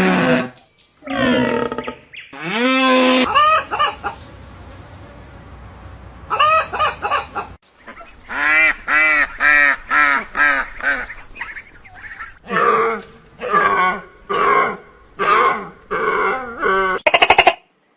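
Domestic fowl calling: bouts of short, repeated calls, with a fast run of about four calls a second near the middle and a brief rapid rattle near the end. A cow's moo trails off right at the start.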